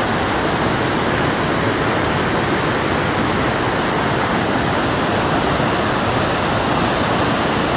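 Waterfall rushing steadily, a constant even roar of falling water with no breaks.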